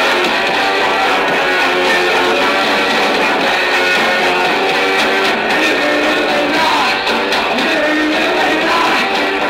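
Punk rock band playing live, with distorted electric guitars strumming in a loud, dense, unbroken mix with little bass.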